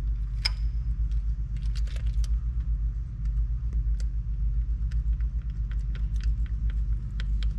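Small metal clicks and ticks of a hand hex driver and bolts being worked on a throttle body bracket, irregular and sharp, over a steady low hum.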